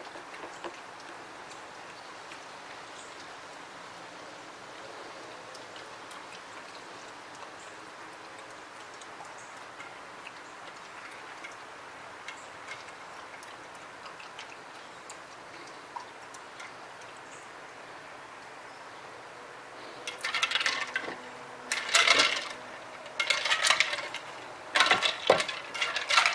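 A German Shepherd puppy nosing ice cubes in its dog bowl. For most of the time there is only a faint steady hiss with a few small ticks. Then, about twenty seconds in, come repeated loud bursts of ice cubes clattering and clinking against the bowl as the puppy knocks them about.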